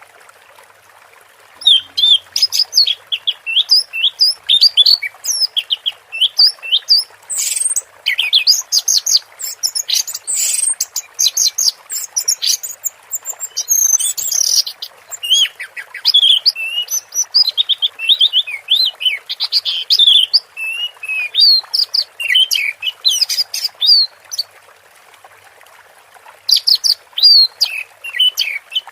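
Orange-headed thrush singing a long, fast run of varied whistled and chattering notes, breaking off for about two seconds near the end before starting again. A steady hiss of running water lies underneath.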